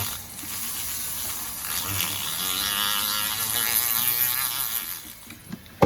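A small electric motor tool buzzing against metal for about five seconds, with a hiss and a wavering whine that gets louder midway, then stops.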